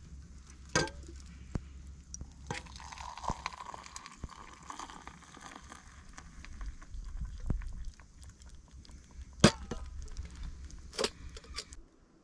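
A handful of sharp clinks and knocks, the loudest about two-thirds of the way through, over a steady low rumble.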